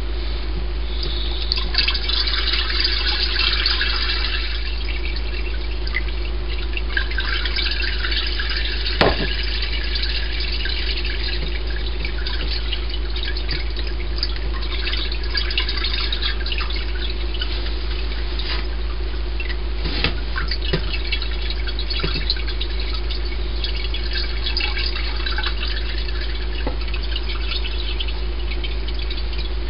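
Corn mash liquid pouring through a cheesecloth-lined strainer, strongest in the first few seconds, then dripping and splashing as the cloth is gathered and squeezed. A steady low hum runs underneath, with a single knock about nine seconds in.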